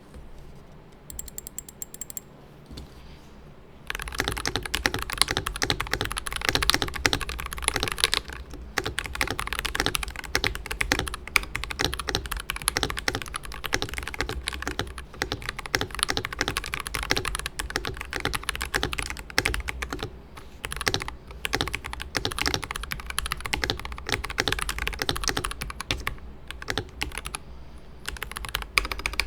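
Typing on a stock, unmodified Varmilo Chang'e mechanical keyboard with Prestige Red switches. A few light clicks open it, then fast, continuous typing starts about four seconds in.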